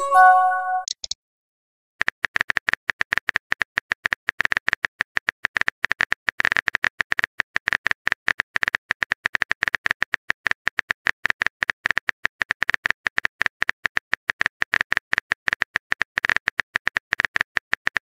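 A short multi-note message-received chime, then, after about a second's pause, a rapid run of keyboard-tap clicks, several a second: a texting app's simulated typing sound.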